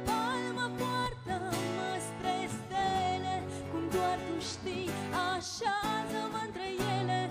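Live folk song: a woman singing with vibrato, accompanied by two acoustic guitars strumming and picking chords.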